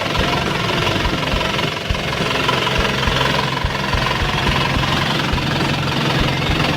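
Isuzu Panther diesel engine running steadily, with the usual diesel knock. It runs normally once the clogged fuel feed pump has been cleaned; the dirty pump had kept it from revving and made it hard to start.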